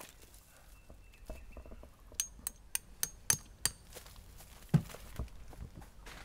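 Hammer driving a metal tent peg into the ground: about six sharp, ringing metallic clinks in quick succession, then one duller, heavier knock.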